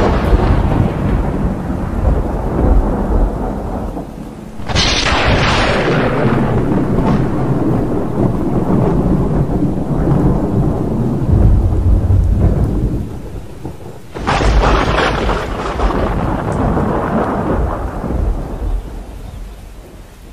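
Thunderstorm with heavy rain: three peals of thunder, one at the start, one about five seconds in and one about fourteen seconds in, each breaking suddenly and rumbling away over several seconds.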